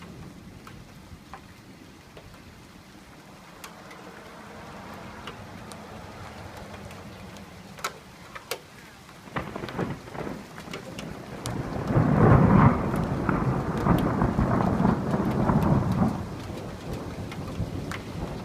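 Steady rain with single drops ticking close by; about halfway through a roll of thunder builds, is loudest for a few seconds, then dies away near the end.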